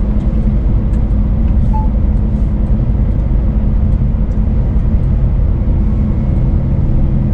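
Scania S500 truck's diesel engine running steadily at cruise, heard inside the cab together with road noise.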